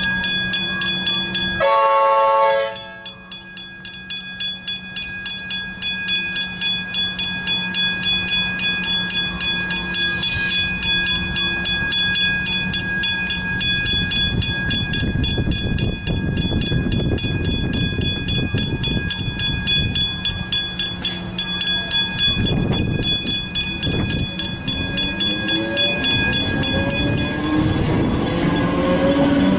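Westinghouse Hybrid level-crossing bell ringing in rapid, steady strokes, with a train horn sounding briefly about two seconds in. An electric suburban train's rumble builds through the second half. The bell stops near the end as the train passes with a rising motor whine.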